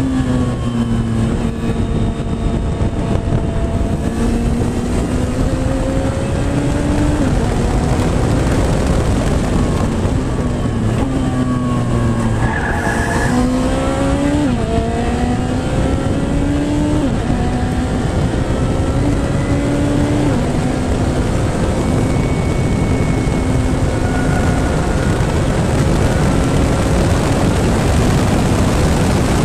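Radical SR3 race car's 1,300 cc engine at speed on track, its pitch climbing and then dropping sharply again and again through quick gear changes, over a steady heavy rush of noise. About twelve seconds in the revs sweep down steeply, with a brief high squeal.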